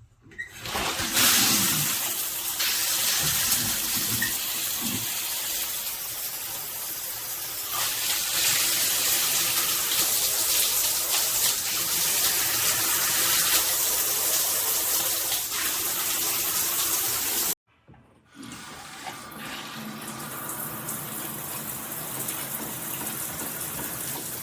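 Water spraying from a Moen Engage Magnetix handheld shower head, a steady hiss. Near two-thirds of the way through it cuts off sharply, then comes back quieter and duller.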